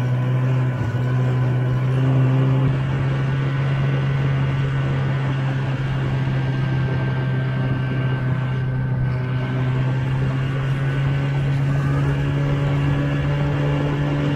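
Snowmobile engine running steadily at cruising speed, heard from on board the moving sled. The engine is briefly a little louder about two seconds in.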